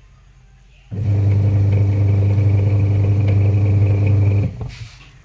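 Washing machine wash motor humming as it drives the belt and gearbox through the agitation cycle: after a pause it starts abruptly about a second in, runs steadily for about three and a half seconds, then stops and winds down near the end, the pause-and-restart of the motor reversing direction.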